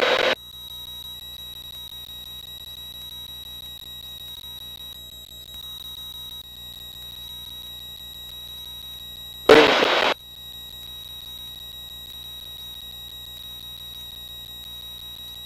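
Steady high-pitched electronic whine with a faint low hum beneath it, in a light aircraft's headset/intercom audio. About nine and a half seconds in, a short burst of noise breaks in for under a second.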